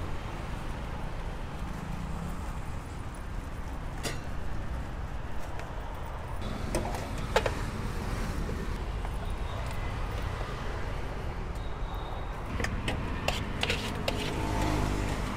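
Steady rumble of road traffic with scattered sharp clicks and clinks of steel pots, lids and plates being handled at a street-food stall, most of them in the second half.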